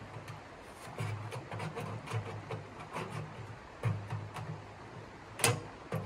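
Metal stovepipe of a tent wood stove being worked up into place, its sections grating and scraping against each other in a run of uneven strokes, with a sharp metallic clack about five and a half seconds in.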